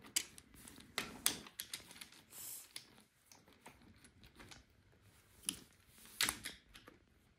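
Brio wooden toy trains and pieces being handled and set down: scattered light clicks and knocks of wood on wood. The two sharpest clicks come late, about five and a half and six seconds in.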